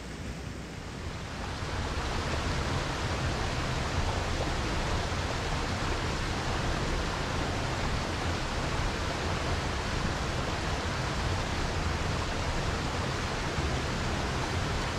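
Steady rush of a mountain stream's flowing water, an even noise without tones that grows louder over the first two seconds and then holds level.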